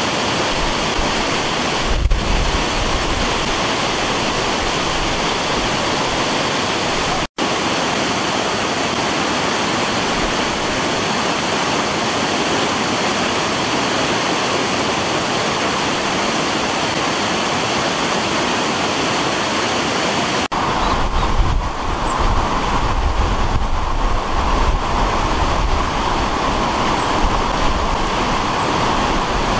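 Swollen floodwater rushing and splashing through a debris-choked metal grille: a loud, steady rush of water. It cuts out for an instant about seven seconds in, and a deeper rumble joins it for the last third.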